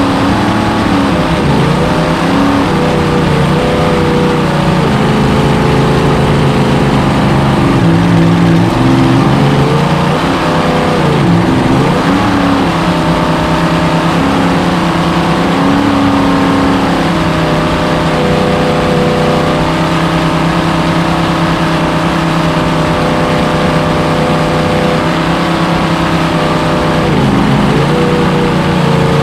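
Supercharged, fuel-injected 427 Chevy big-block V8 of a V-drive circle-racing boat running hard at racing speed, heard onboard. Its pitch dips and climbs back several times as the throttle comes off and goes back on through the turns, over steady rushing wind.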